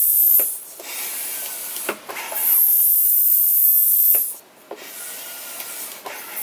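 Stock Crua hand barrel pump being stroked slowly, about two strokes. Each push down brings a long, loud, high hiss as air escapes through the 7 PSI blow-off valve, a sign that the tent airframe has reached 7 PSI and is taking no more air. Each pull back up draws in air more softly, with a click as the handle turns.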